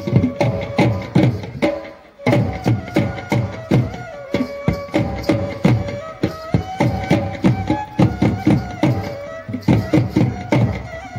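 Indian folk-style music accompanying a stage dance: fast, steady drum beats under a melody. It cuts out briefly about two seconds in, then starts again.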